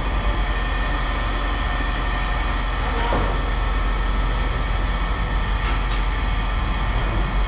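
Heavy machinery running steadily with a continuous low rumble and hum, with no distinct knocks or impacts.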